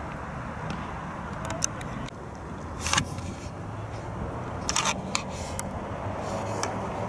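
Steady low hum of a running motor, with about five brief, sharp higher-pitched noises over it.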